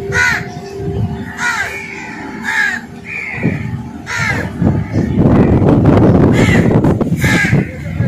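Crows cawing, about six separate calls, over a steady hum in the first half. From about five seconds in until near the end, a loud rushing noise covers everything.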